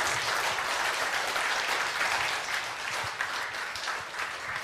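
A large audience applauding, the clapping thinning out gradually over the last second or so.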